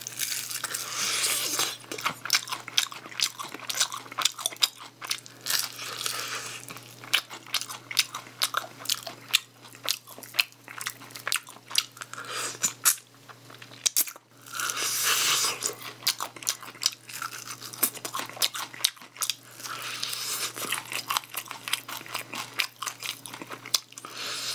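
Crunching bites and chewing of crispy, sauce-glazed fried chicken, repeated irregularly in thicker spells with short lulls.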